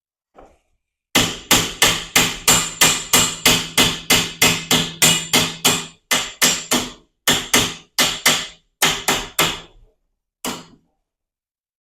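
Hammer striking the metal torsion spring assembly of a garage door: a fast run of about two dozen ringing blows, roughly three a second, with a few short breaks and one last blow near the end.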